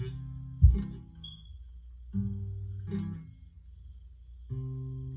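Acoustic guitar strummed slowly by a beginner practising chord changes, one strummed chord every second or two with ringing notes between. A sharp low thump about half a second in is the loudest sound.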